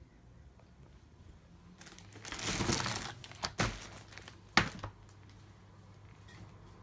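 Rustling and crinkling of something being handled, starting about two seconds in and lasting about a second, followed by three sharp knocks.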